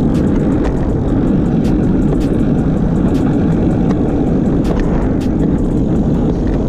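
Steady rush of wind buffeting the handlebar camera's microphone as a road bike coasts downhill on asphalt, with scattered faint ticks.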